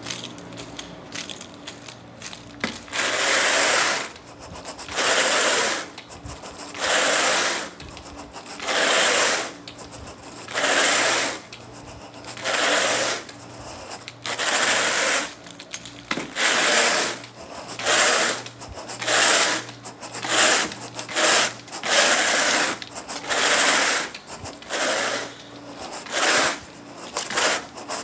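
Carpet grooming rake drawn again and again through the pile of freshly cleaned carpet, each stroke a scratchy rasp lasting under a second, about one every one to two seconds and quickening to about one a second in the second half.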